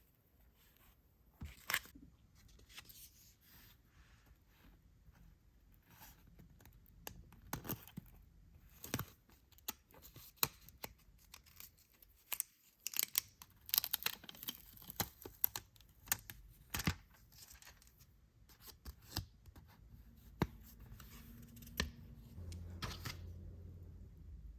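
Toy packaging being torn open and handled: irregular crisp tearing and crackling with sharp clicks, busiest near the middle.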